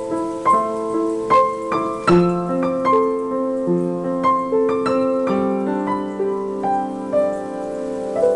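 Upright piano played solo: a melody of single notes over lower notes that are held and ring on, with a stronger low chord struck about two seconds in.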